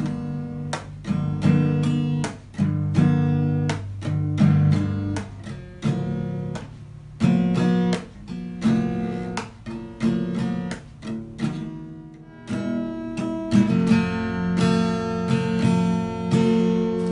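Acoustic guitar music: a steady run of strummed and plucked chords.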